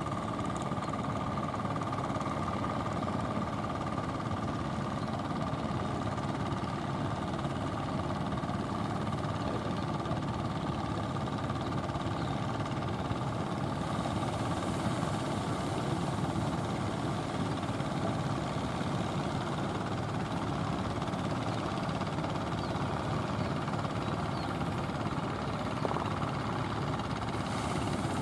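An engine running steadily, a continuous even rumble with a faint steady hum.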